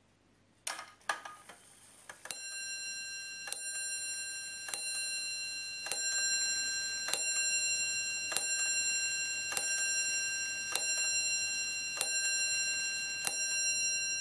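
The Le Guépard table clock's striking mechanism sounding: a few mechanical clicks about a second in, then about ten bell strikes, one every second or so, each ringing on until the next.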